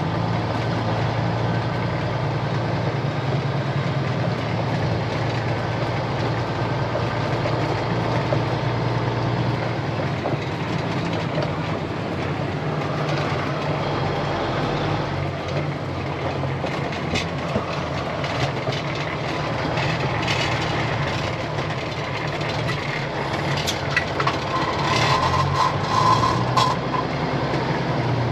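Heavy Peterbilt wrecker's diesel engine running steadily, heard from inside the cab as the truck drives slowly over a rough dirt road. In the second half the cab rattles and knocks over bumps, and a brief squeal comes in near the end.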